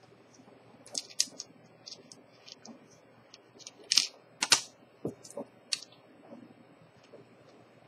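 Irregular sharp clicks and taps of small metal watch parts and tools being handled on a workbench, the loudest two about four and four and a half seconds in.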